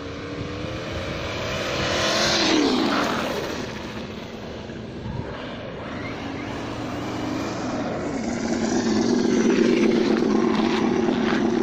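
Simulated engine sound from a Sense ESS One Plus sound module on a Losi Baja Rey RC trophy truck. It rises and falls in pitch with the throttle, then runs steadier and louder from about eight seconds in as the truck comes close.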